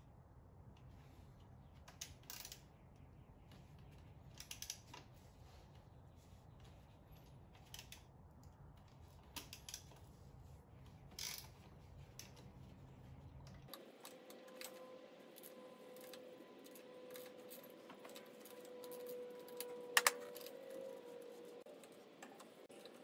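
Faint, scattered metallic clicks and clinks of hand tools and a socket working small 10 mm bolts and a nut, over a low background hum. About two-thirds of the way in the hum stops and a faint steady whine takes over, with one sharp click a few seconds later.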